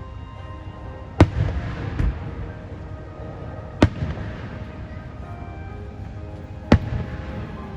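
Aerial fireworks shells bursting: three loud bangs about a second, four seconds and nearly seven seconds in, plus a smaller one around two seconds, each trailing off in a brief crackle and rumble. Show music plays underneath.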